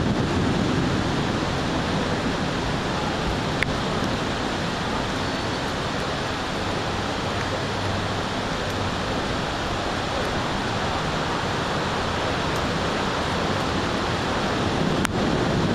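Heavy thunderstorm rain falling steadily, a dense even hiss, with two sharp ticks, one about four seconds in and one near the end.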